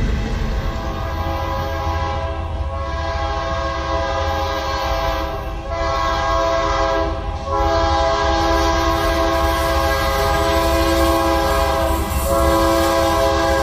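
Diesel locomotive's multi-chime air horn sounding a sequence of blasts, long, long, short, then a long one still going at the end, over the low rumble of the train.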